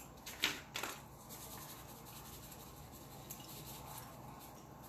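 Spice shaker being shaken over raw chicken wings: a few short dry rattles in the first second, then only faint scratchy sounds.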